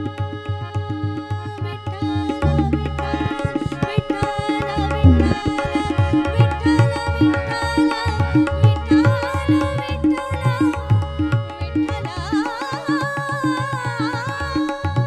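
Tabla playing a steady rhythmic beat under held harmonium chords, accompanying a Marathi devotional abhang. A woman's voice comes in with wavering, ornamented melodic lines in the second half.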